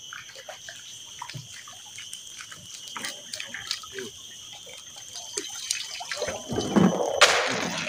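Small splashes and drips of water with light clicks as freshly netted live shrimp are handled in water. A louder rush and splash of water comes about six and a half seconds in.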